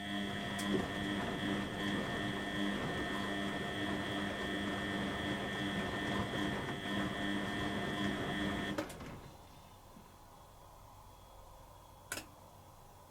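Beko WTB841R2W washing machine running: a steady mechanical hum over a water-like rush that stops abruptly about nine seconds in, followed about three seconds later by a single sharp click.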